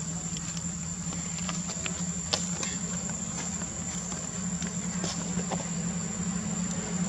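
Steady high-pitched insect drone, with a low steady hum beneath it and a few faint scattered clicks.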